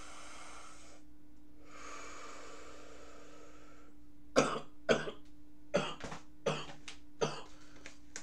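A man breathes out heavily twice, then coughs five times in quick succession, a little under a second apart. A steady low hum runs underneath.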